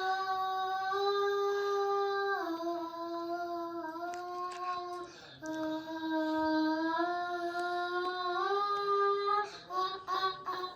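A child singing long held notes that step up and down between a few pitches, breaking into shorter notes near the end.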